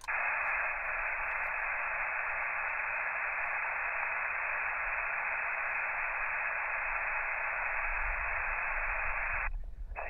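Elecraft KX2 transceiver's receiver hissing with steady band noise on 20-metre single sideband while listening for replies to a CQ call. The hiss is thin and band-limited, like a phone line, and cuts off abruptly about half a second before the end.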